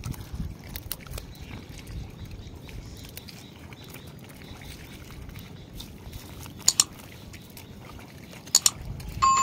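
Subscribe-button animation sound effect: two quick double mouse clicks, then a bright bell ding near the end. Under it is a faint low rumble with small scattered clicks.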